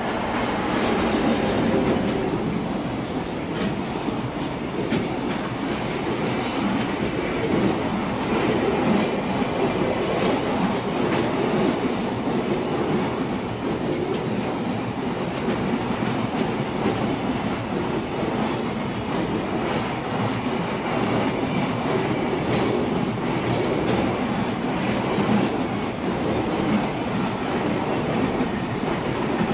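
JR Tokaido Main Line train running past, a steady loud rumble of wheels on rails with clattering over the rail joints, building up in the first couple of seconds.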